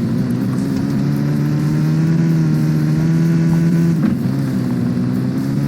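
An engine running steadily, its pitch shifting slightly about four seconds in.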